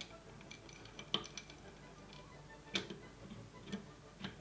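Scattered hard clicks and knocks as the recoil spring cover is handled and refitted on a GHK 553 gas blowback airsoft rifle, with three sharper clicks about a second and a half apart, over quiet background music.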